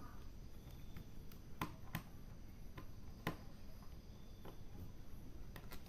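Faint, scattered sharp clicks of a small screwdriver and tiny metal screws while the bottom-case screws of an HP laptop are being taken out, about five clicks spread irregularly over a few seconds.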